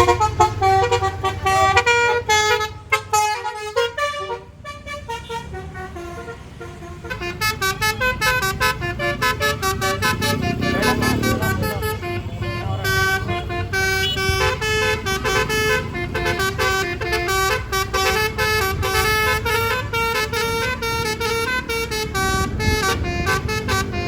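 Basuri telolet horn on a Tunggal Jaya bus playing a fast tune of stepped, pitched notes over the bus's running engine.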